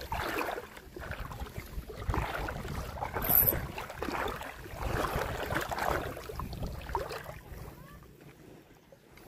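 Water sloshing and washing at the shoreline, with wind on the microphone, in swells that fade away near the end.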